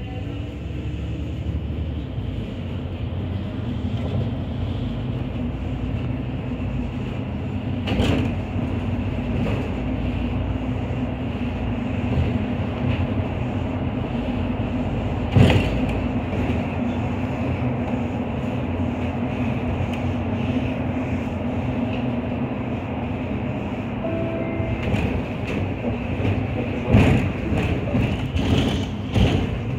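Interior of a MAN Lion's City Efficient Hybrid city bus under way: steady running noise with a constant hum. Two sharp knocks come about 8 and 15 seconds in, and a run of knocks and rattles near the end.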